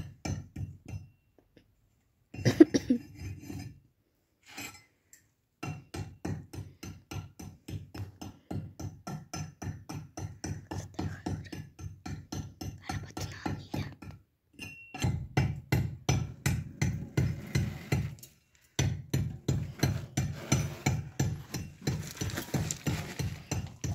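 Background music with a fast, steady percussive beat of about four clicks a second over a low pulse, dropping out briefly a few times.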